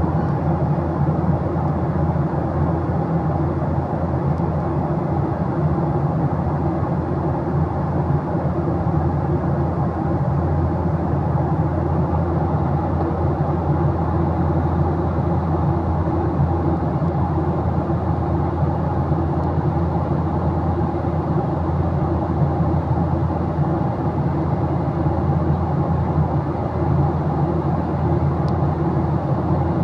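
Steady cabin noise of a Boeing 737-800 in flight, heard from a window seat: the low, even drone of its CFM56-7B jet engines and the airflow past the fuselage, with a few steady hums under it.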